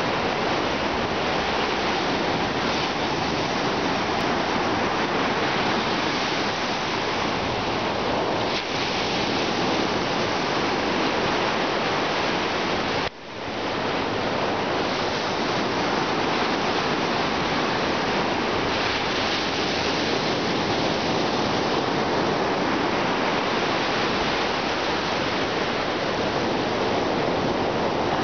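Ocean surf breaking and washing up the beach, a steady, even rush of water noise. It cuts out briefly about halfway through and comes straight back.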